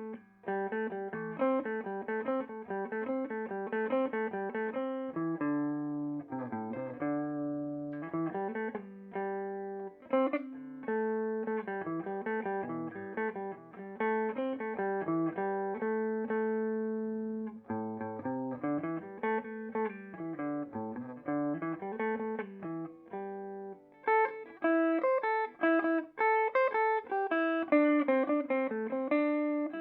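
Electric guitar played clean through a Peavey Bandit 112 combo amp's clean channel in modern mode, high-gain input: picked notes and arpeggiated chords with clear ringing sustain. About 24 seconds in the playing moves higher and brighter.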